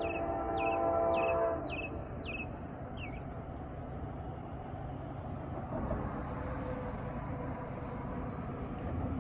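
Freight locomotive air horn sounding a long chord that cuts off about a second and a half in, followed by the steady low rumble of the approaching train.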